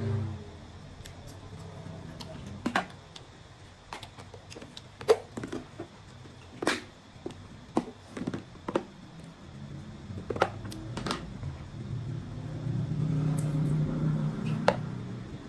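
Clear plastic food containers being handled: a scattered series of sharp plastic clicks and knocks as lids are opened and boxes are set down and picked up. A low hum builds toward the end.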